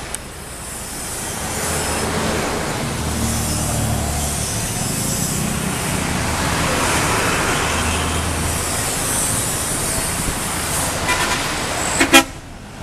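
A heavy road vehicle, such as a bus, driving past with its engine running; the engine and tyre noise swell and then fade. About twelve seconds in there is a short, sharp, loud burst, such as a brief horn toot.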